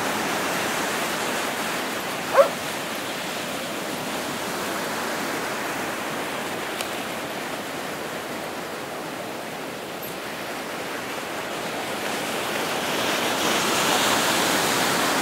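Ocean surf washing on the beach in a steady rush that grows louder near the end, with a single short dog bark about two seconds in.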